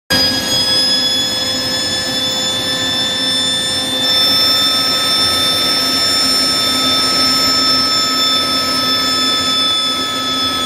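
Homemade turbojet built from a truck turbocharger spinning at speed: a steady high whine of several tones over a constant rush of air. Its whine changes note slightly about four seconds in.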